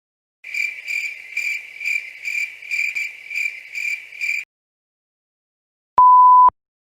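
Cricket chirping sound effect, an evenly pulsed high chirp about twice a second for four seconds, starting and stopping abruptly out of dead silence: the 'awkward silence' gag. Near the end a short, steady single-pitch beep like a censor bleep.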